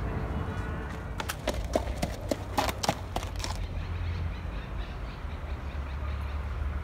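An irregular run of about ten sharp clicks or knocks, lasting a little over two seconds, over a steady low rumble.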